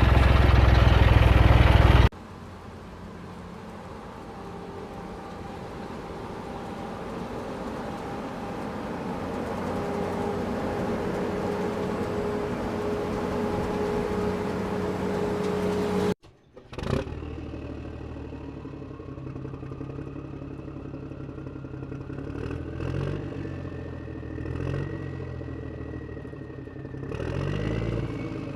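Motors of mini RC toy vehicles running, across several edited cuts. There is a steady hum that breaks off suddenly about halfway through, then engine-like running with a slowly rising whine and a few revving swells near the end.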